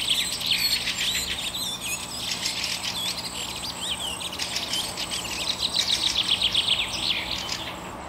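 Small birds chirping and twittering in quick, overlapping calls, with a thin steady high tone behind them.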